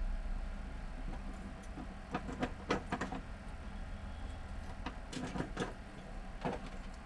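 Short clicks and scrapes of small plastic and metal printer parts being handled and fitted by hand on a Brother DCP-T226 scanner mechanism, coming in two clusters about two seconds in and again about five seconds in.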